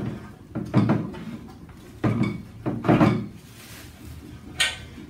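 Grill parts and packaging being handled: a few thuds and scrapes about a second in and again two to three seconds in, then a short, sharp rustle near the end.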